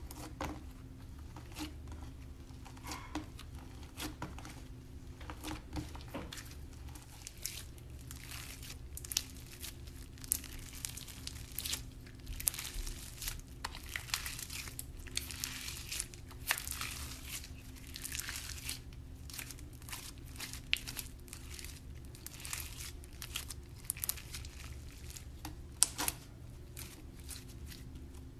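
Thick white slime being kneaded, pressed and pulled apart by hand: irregular sticky crackles, small pops and tearing sounds, with sharper snaps now and then.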